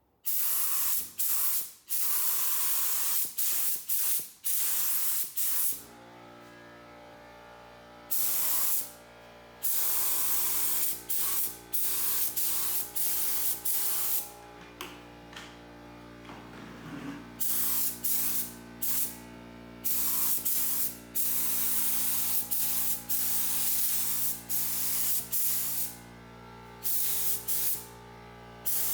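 Paint spray gun hissing in many short bursts as the trigger is pulled and released, spraying headlight and tail-light lenses. About six seconds in, a steady machine hum starts underneath and keeps running.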